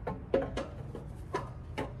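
A handful of sharp, irregular metallic clinks and knocks, a few with a short ring, the loudest about a third of a second in, as a cast exhaust manifold with built-in catalytic converter is worked onto its bolts at the engine's cylinder head.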